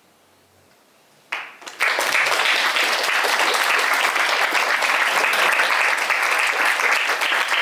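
Audience applauding: after a short hush, clapping breaks out about a second in and swells within half a second into steady applause from many hands.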